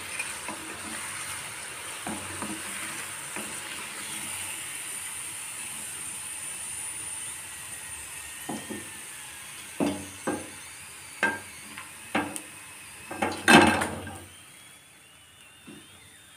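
Pakodas sizzling in hot mustard oil in an iron kadhai. In the second half a wooden spatula knocks and scrapes against the pan about seven times as the pakodas are lifted out, loudest near the end of that run. The sizzle then dies down as the pan empties.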